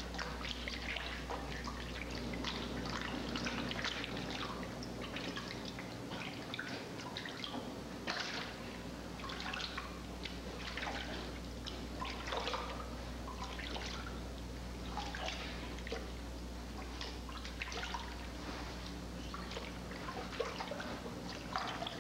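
Water dripping and trickling in irregular little ticks, over a steady low hum.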